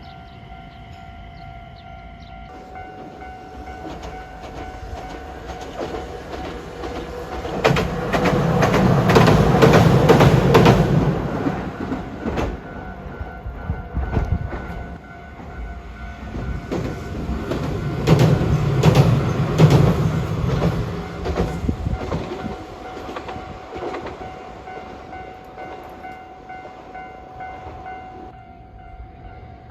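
A train passing close by, its wheels clattering over the rail joints; the rumble swells to a loud peak about a quarter of the way in, eases, peaks again around two-thirds through, then fades.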